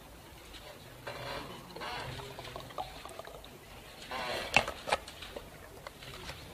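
Faint murmur of voices in a room, with two sharp clicks a little past the middle.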